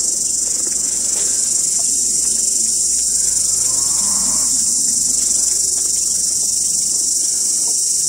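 Dense, steady chorus of insects calling, high-pitched and unbroken. A short, faint call sounds about four seconds in.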